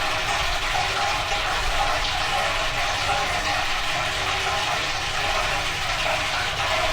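Old Hotpoint washing machine running its cycle, with a steady rush of water inside the machine.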